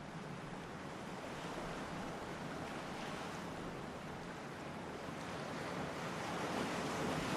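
Ocean surf: a steady rush of breaking waves, slowly growing louder.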